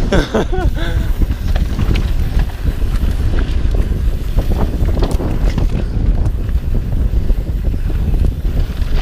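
Wind buffeting the microphone of a mountain bike descending a dirt trail at speed, with the tyres rolling over dirt and scattered clicks and rattles from the bike over bumps.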